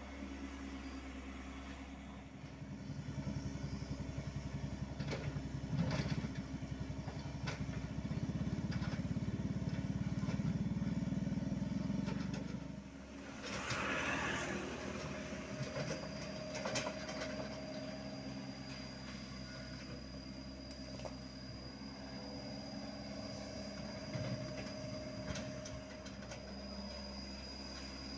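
Hyundai R80-7 mini excavator's diesel engine running steadily while it digs. The engine pulls harder under load for several seconds before easing off about halfway through, with a short scraping rush and scattered knocks of the bucket on soil and rock.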